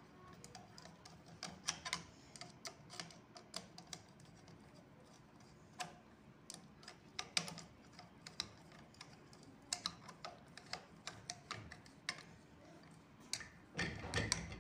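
Screwdriver putting in a small fixing screw on a sewing machine's metal shuttle race: scattered light metal clicks and ticks at an uneven pace. A louder handling noise comes near the end.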